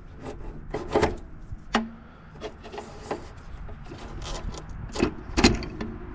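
Wiring being pulled out of an air conditioner unit: irregular scraping and rubbing with several sharp knocks, the loudest about a second in and again about five seconds in.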